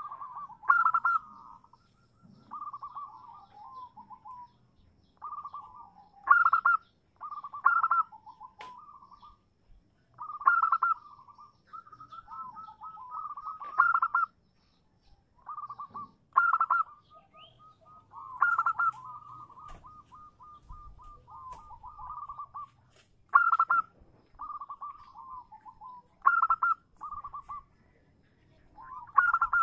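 Zebra dove (perkutut) cooing in repeated short phrases of rapid rattling, trilled coo notes, each opening with a louder accented note and trailing off lower, a new phrase every second or two. It is the female's call, used as a lure to draw males into answering.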